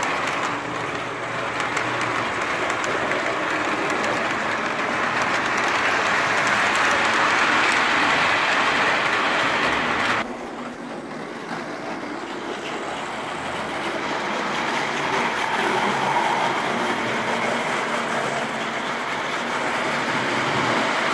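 O gauge model trains running on the layout's track: a steady whirr of wheels and motors that drops off suddenly just past halfway and builds again toward the end as a streamlined steam locomotive passes close.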